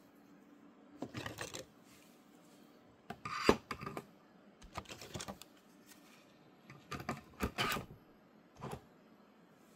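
Irregular bursts of clicking and rattling from hard objects, about five clusters, with one sharp click near the middle being the loudest.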